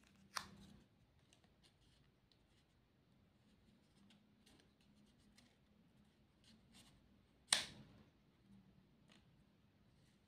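Paper stickers being peeled from their backing and pressed onto a paper plate: two short sharp peeling sounds, one just after the start and a louder one about seven and a half seconds in, with faint paper rustles and small taps between.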